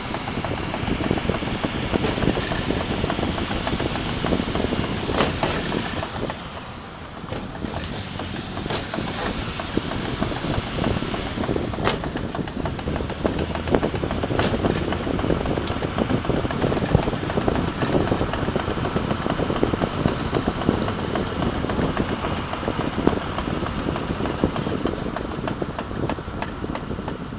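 Car in motion with steady engine and road noise, and a few sharp pops scattered through: the weird popping noise from the front driver's side wheel.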